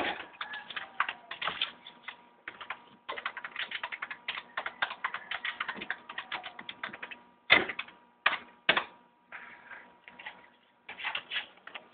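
A small dog's claws scratching and scrabbling at blankets in a cardboard box: a fast, dense run of scratchy clicks that breaks off about seven seconds in into a few separate knocks, then picks up again near the end.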